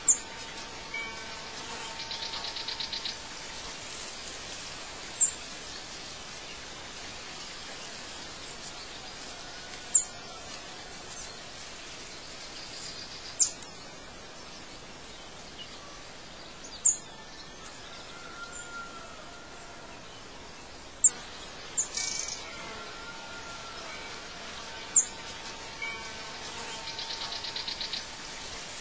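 Birdsong ambience: short, sharp high chirps every few seconds, a buzzy trill twice and some lower whistled notes over a steady background hiss.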